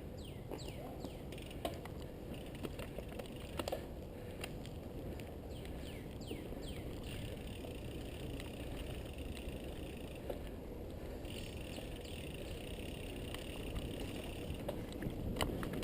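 Mountain bike rolling along a dirt trail: steady tyre and wind noise with occasional knocks and rattles from the bike. Birds call over it in runs of quick downward-sliding notes near the start and again about five seconds in.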